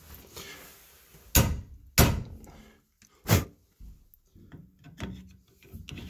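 Three sharp taps on the end of a ground-flat 1-inch chisel seated in the slot of a Moen 1423 balancing spool, meant to loosen the spool where mineral deposits have seized it in the brass valve body. The first two come about half a second apart and the third a little over a second later, each ringing briefly.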